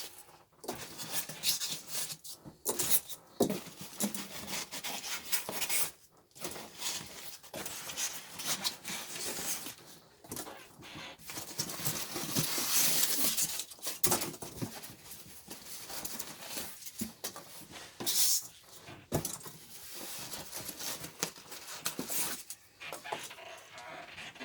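Packing materials being handled and pulled apart: continuous rustling and scraping with frequent knocks and clicks.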